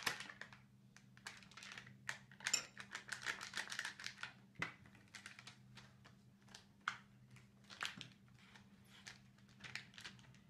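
Irregular light clicks and scrapes of spoons against glass bowls as a salep-and-water slime mix is stirred, with the rustle of a salep packet being torn open.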